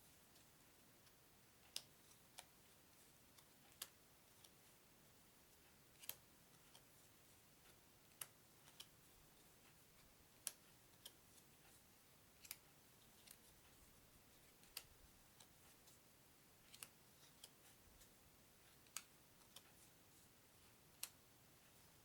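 Small game cards being set down one at a time on a table, each a light, sharp click, about one every two seconds, some with a softer second tap just after. Otherwise near-silent room tone.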